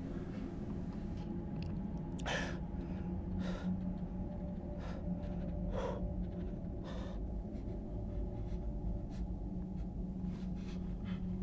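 A person's short, sharp breaths: about five quick gasps, roughly a second apart, over a steady low hum.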